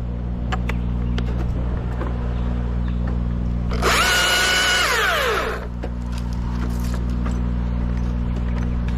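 Chainsaw revving up for about a second and a half, then winding down as the throttle is let off, over the steady drone of the lift's idling engine, with a few light knocks.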